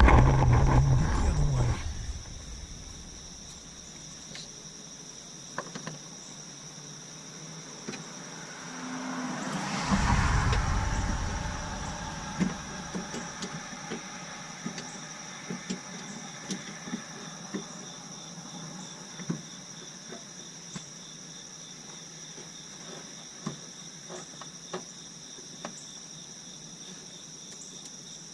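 Insects trilling steadily in the background, with scattered light clicks and knocks from hand work on the headlight assembly. A low rumble in the first two seconds, and a vehicle swelling past and fading about ten seconds in.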